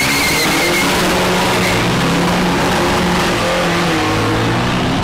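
Two box-bodied cargo pickup trucks launching side by side down a quarter-mile drag strip, engines revving hard under full acceleration, with a tyre squeal in the first second.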